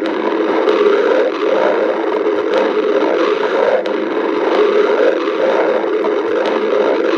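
A hungry person's stomach growling in one long, continuous rumble that wavers up and down in pitch without a break.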